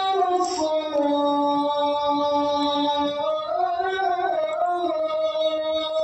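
A solo voice chanting unaccompanied, holding long notes that slide slowly from one pitch to another, in the style of an Islamic call to prayer or nasheed.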